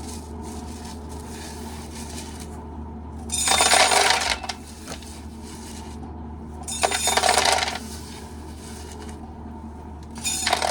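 Dry corn kernels being shelled off the cob and rattling down into a container in three bursts, the first two about a second each and the last shorter near the end, with lighter rustling between them.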